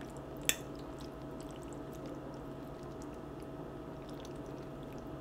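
A fork clicks once against a plate of noodles about half a second in, over a steady faint hum.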